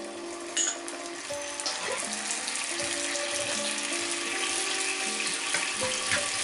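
Fish sauce sizzling as it hits hot oil with chopped garlic, chillies and palm sugar in a frying pan, with a spatula clicking against the pan now and then. Background music plays under it.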